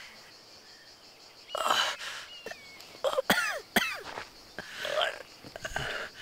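A man coughing and gasping in strained, wheezing breaths, in several short bursts with choked, falling vocal sounds, as from someone badly wounded.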